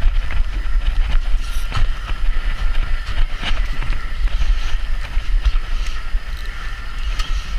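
Wind buffeting the microphone on a boat at sea, a loud, uneven low rumble, with a faint steady whine and scattered small clicks behind it.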